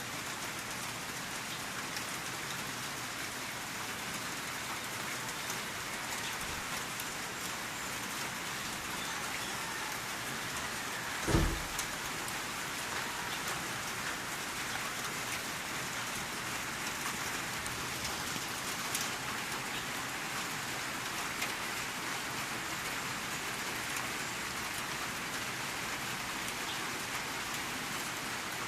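Steady rain falling on a surface, an even hiss that holds throughout. A single short low thump breaks in about 11 seconds in, the loudest sound here.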